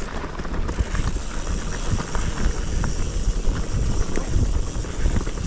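Mountain bike descending a steep dirt trail: wind buffeting the microphone over a steady rumble, with frequent rattling clicks and knocks from the bike.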